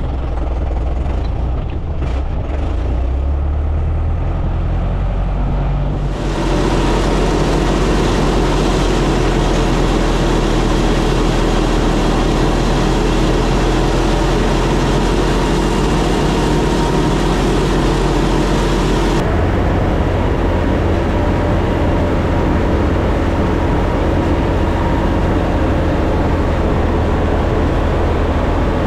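Farm tractor engine running steadily. About six seconds in it gets louder and fuller as if put to work, then changes again, duller and deeper, about two-thirds of the way through.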